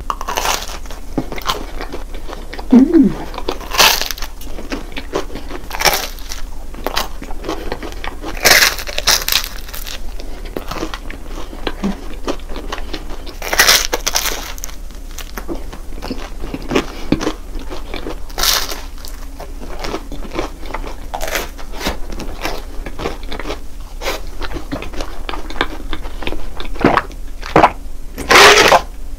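Close-miked eating: biting into and chewing a crispy croffle topped with whipped cream and fresh strawberries, with repeated short crunches. Near the end, a few louder gulps of a drink.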